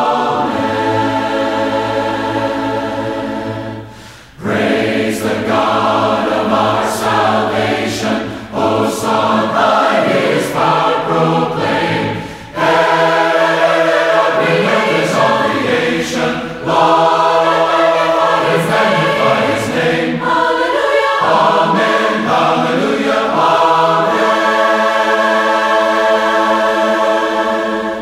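Mixed choir singing a four-part hymn a cappella, with short breaks between phrases. It ends on a long held 'Amen' chord.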